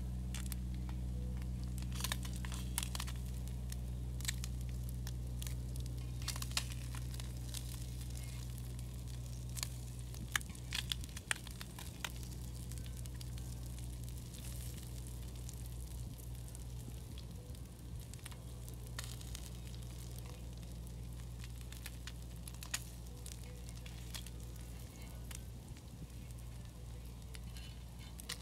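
Steaks sizzling on a hot griddle, with scattered sharp crackles and clicks over a steady low hum.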